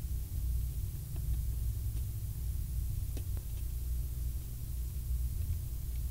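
A steady low hum with a few faint clicks of a Phillips screwdriver working the screws of an ATM card reader mount.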